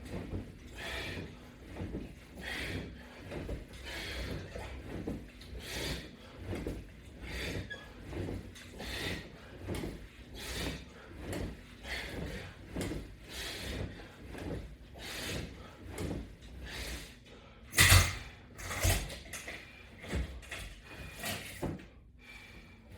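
Repeated ab crunch reps on a strap-and-bar exercise rig: a short breath-and-movement sound with each rep, about one every 0.8 seconds. A loud knock comes about 18 seconds in, followed by a few softer knocks.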